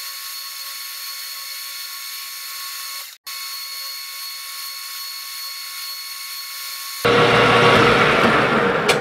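Metal lathe running, a steady whine with several high tones over a hiss. About seven seconds in a louder, rougher noise starts as the cutting tool works the spinning shaft.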